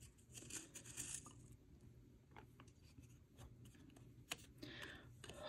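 Faint rustling and light crackling of a folded cardstock paper tag being untied from its twine and unfolded by hand, with a few soft ticks of paper handling.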